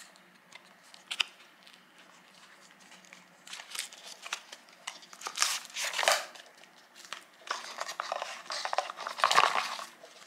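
Cardboard packaging and paper being handled: rustling, scraping and clicking of card as the box's flaps and inner tray are opened and the box is tipped, with louder crinkling in the second half as a folded paper booklet is pulled out.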